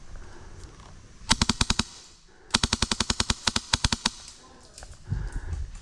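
HPA-powered airsoft rifle firing two full-auto bursts of sharp pops at about fifteen shots a second: a short burst of about nine shots, then a longer one of about twenty shots.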